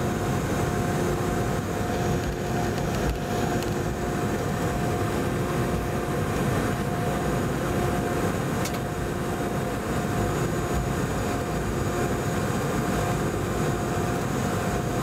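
Boeing 717-200's tail-mounted Rolls-Royce BR715 turbofan running steadily at low power as the aircraft taxis, heard in the cabin from a seat beside the engine: a constant rumble and rush carrying a steady hum.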